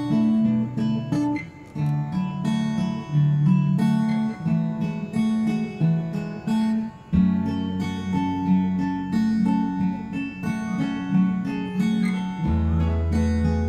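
Background music played on acoustic guitar, with plucked and strummed notes over a changing bass line.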